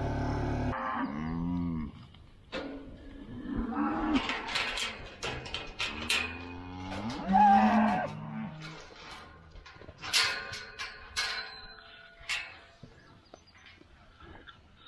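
Cattle mooing, three long calls, from cows eager to get into a new pasture. A steady engine hum cuts off abruptly under a second in, and a few sharp clacks come near the end.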